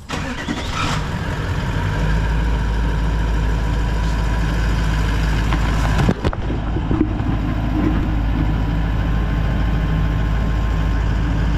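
Toyota LandCruiser 200 Series 4.5-litre V8 turbo-diesel engine starting up and settling into a steady idle about two seconds in, running so the transmission pump pushes old fluid out through a disconnected cooler line. A brief knock about six seconds in.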